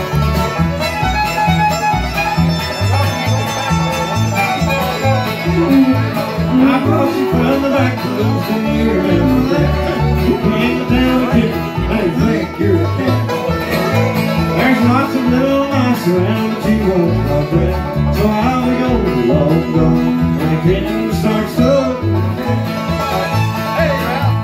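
Live bluegrass band playing an instrumental break between verses: picked five-string banjo and acoustic guitar over steady bass notes on the beat, with a bowed fiddle taking the lead melody from about five seconds in.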